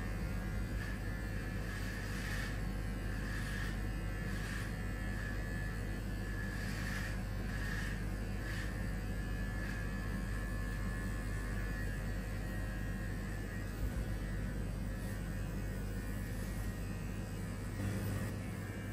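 Electric hair clippers buzzing steadily as they shave a head of hair. A soft swish of cutting comes about every second.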